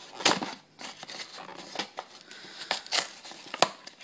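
Trading card packaging, paper, cardboard and foil, being torn open by hand: irregular crinkling and ripping with sharp crackles, loudest about a quarter second in and again near three seconds in.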